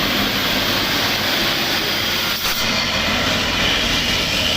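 Dump truck engine running with a steady rush of noise, with one short knock about two and a half seconds in.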